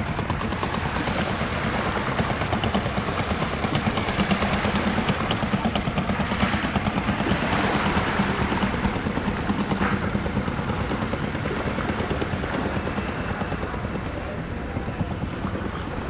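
An engine running with a rapid, even chugging pulse, swelling in loudness near the middle and easing off toward the end, over a wash of surf and wind.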